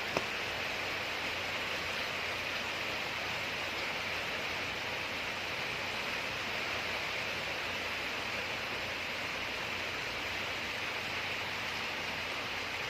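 Steady typhoon rain, a constant even hiss, with a single short click right at the start.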